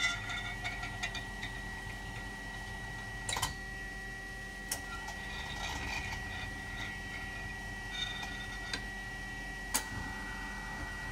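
Super Kia Turn SKT-21V CNC lathe work stocker cycling: a steady machine hum with a high whine, broken by sharp clicks and knocks every few seconds as its station plates lift and lower.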